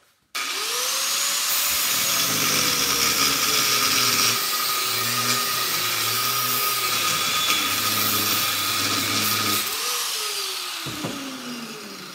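Angle grinder switched on and spinning up, then grinding through the welds on a transformer's laminated steel core clamped in a vise. About ten seconds in it is switched off and winds down with a falling whine.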